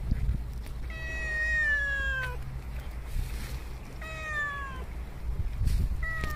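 A cat meowing three times, each call sliding down in pitch; the first is the longest, about a second and a half. Low thumps from the phone being handled sit underneath.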